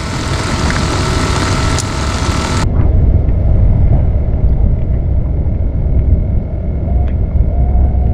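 Wind buffeting the microphone: a loud, low, steady rumble with no engine-like rhythm. A bright hiss lies over it for the first few seconds and cuts off suddenly.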